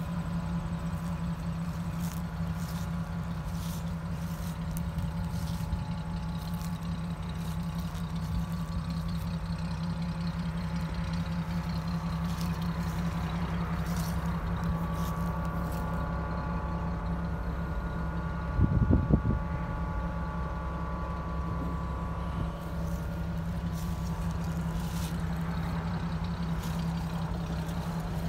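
1953 Dodge pickup's flathead six engine idling steadily. A short, louder low burst breaks in about two-thirds of the way through.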